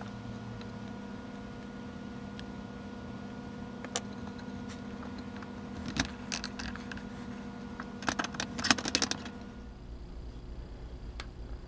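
Wooden dovetail boards clicking and knocking as they are pressed together by hand, with a few scattered clicks and then a dense cluster of sharp clicks about eight to nine seconds in. Under them runs a steady hum that stops about ten seconds in.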